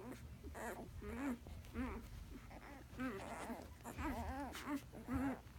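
Newborn Alaskan Malamute puppies squeaking and whimpering: a run of short, high, rising-and-falling cries, one or two a second.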